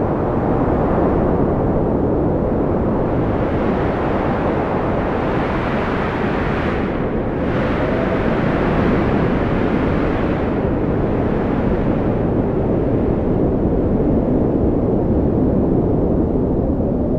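Strong wind blowing steadily: a deep, dense rushing noise with a faint whistle that rises and falls now and then.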